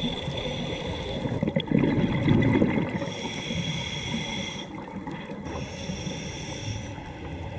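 Underwater sound through a dive camera housing: a steady noisy rumble, with a louder gurgle of scuba exhaust bubbles from about one and a half to three seconds in. Thin steady high whining tones fade in and out over it.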